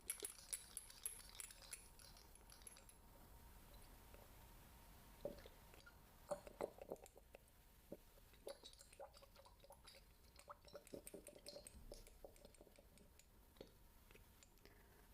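Faint, irregular scratching and small clicks from ASMR ear-cleaning tools working close against the microphone. The sounds come in a cluster at the start and another through the middle.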